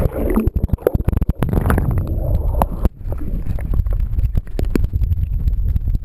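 Sound of moving water picked up by an action camera's bare microphone underwater: a loud low rumble with many crackles and clicks. It drops out briefly just before three seconds in.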